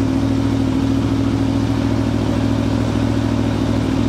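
2017 Aprilia Tuono Factory's V4 engine idling steadily while it warms up.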